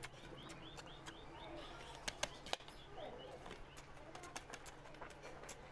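A hand mixing rice and oily curry on a plate and bringing it to the mouth: soft wet clicks and smacks of eating, with a few sharp clicks about two seconds in. Small birds chirp faintly in the background.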